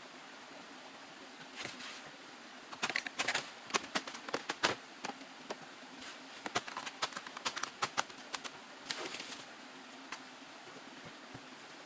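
Irregular sharp clicks, snaps and rustling of hand work, densest from about three to five seconds in and again from six to eight seconds in, with short scraping rushes near two and nine seconds in.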